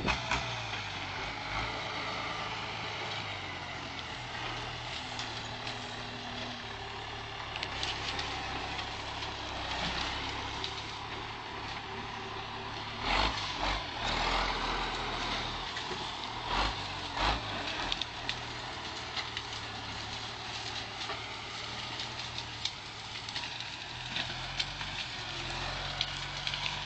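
International Harvester tractor engine running steadily as the tractor drives through thick brush, with the crack and crunch of branches under it and a few sharp, louder cracks about halfway.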